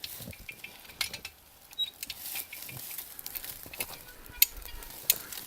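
Irregular light clicks and knocks from a hand-cranked winch being worked to pull a cut tree section.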